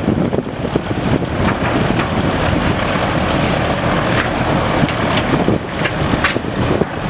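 Hovercraft running with a loud, steady mechanical noise, with wind buffeting the microphone.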